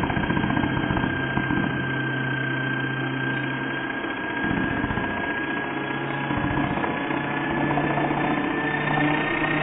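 Hoover vacuum cleaner motor, a brushed universal motor, running at full speed on a test stand: a loud, steady high whine that creeps slowly upward in pitch over a dense running noise. Its brushes are arcing and throwing sparks, which the owner took for the motor burning out.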